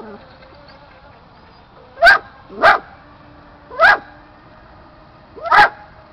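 A dog barking: four short, loud barks, two in quick succession about two seconds in, then one near four seconds and one near the end.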